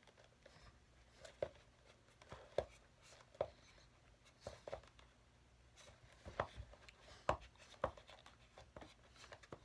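Leather being worked by hand: soft, irregular clicks and taps as the sliced channel flap of a leather shoe sole is pushed back down over the blind stitching, a few sharper taps in the second half.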